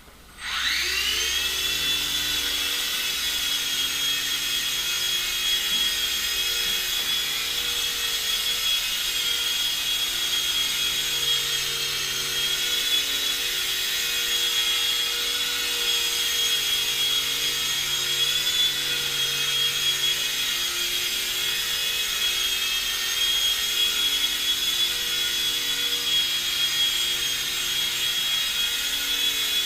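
Blade mCX2 micro coaxial RC helicopter's electric motors spooling up with a rising whine in the first second, then running with a steady high-pitched whine over a lower rotor hum that wavers slightly as the helicopter manoeuvres.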